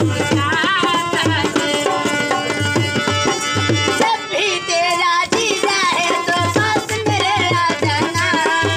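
Indian-style singing over a hand drum keeping a steady rhythmic beat.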